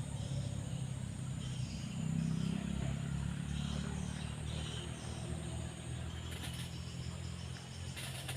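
A motor engine running steadily with a low hum, a little louder about two seconds in, and two brief clicks near the end.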